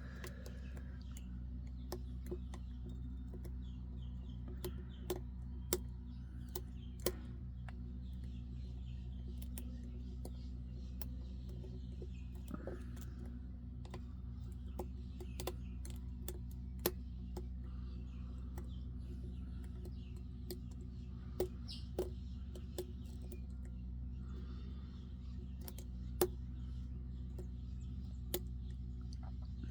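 Small, sharp clicks at irregular intervals from a lock pick and tension tool working the pins inside a Humboldt 101 pin-tumbler lock, over a steady low hum.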